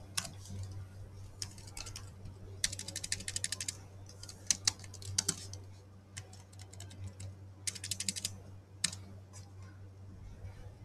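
Computer keyboard being typed on in several short bursts of rapid key clicks, with pauses between them and a steady low hum underneath.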